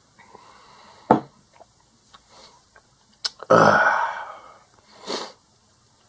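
A drinking glass set down on a tabletop with a sharp knock about a second in, then a loud burp after drinking water, fading out over most of a second, and a shorter breath near the end.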